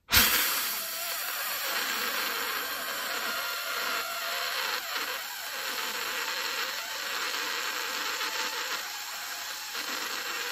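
Steady whirring hiss of a small motor, starting suddenly and running evenly throughout.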